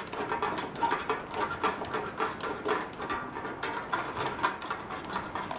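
An E27 screw-base LED bulb being turned by hand into a bulkhead light's lampholder: a string of small irregular clicks and scrapes as the thread turns.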